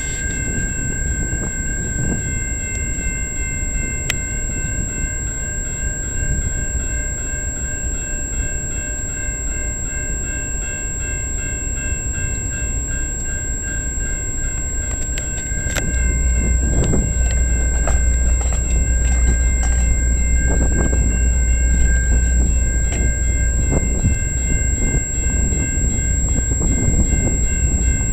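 Railway level-crossing warning bell ringing steadily while the crossing signals are active. About halfway in, a low rumble grows louder, the approaching passenger train.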